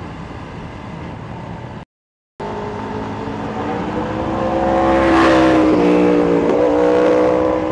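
Yamaha Sniper 150 motorcycle's single-cylinder engine running under way, picked up from the bike along with wind noise. The sound cuts out for about half a second about two seconds in. It then comes back and grows louder as the bike speeds up, and its pitch dips briefly and recovers near the end.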